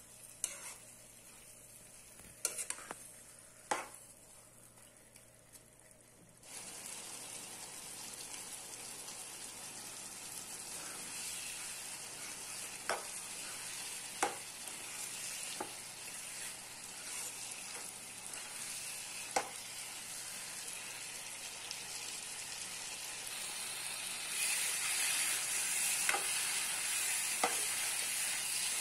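Chicken pieces in thick masala sizzling in a frying pan while a metal spoon stirs them, with occasional sharp clicks of the spoon on the pan. The sizzle comes in suddenly several seconds in and grows louder near the end.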